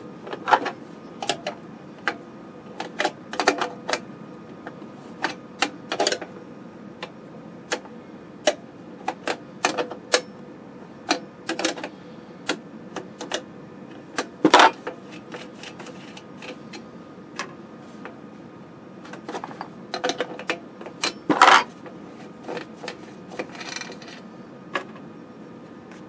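Irregular sharp clicks and clinks of hand tools, nuts and small screws on a sheet-steel chassis as it is unscrewed and taken apart, with two louder knocks, one about halfway through and one later.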